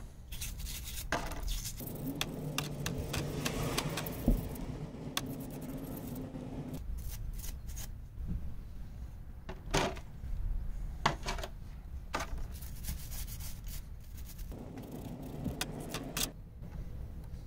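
Toothbrush scrubbing the back plate of a rear-wheel-steering lock in white spirit: bristles rubbing and scraping on the part, with scattered sharp clicks as it is handled. A low steady drone sits in the background from about two seconds in to about seven, and again briefly near the end.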